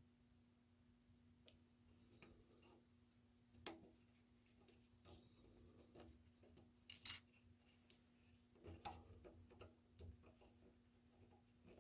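Faint scattered clicks and ticks of a small tap being turned by hand with a knurled knob in a spring-loaded tap guide, cutting a 6-32 thread down toward the bottom of the hole. A sharp metallic double click comes about seven seconds in, over a steady low hum.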